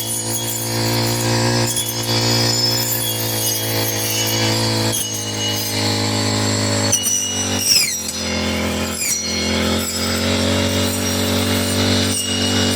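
Four-stroke brush cutter engine running steadily at cutting speed, its pitch dipping and wavering about seven seconds in.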